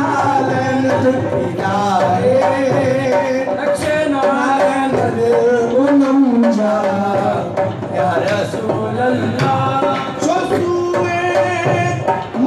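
Live devotional singing with tabla drumming: voices with wavering melodic lines over a steady beat of hand-played drums.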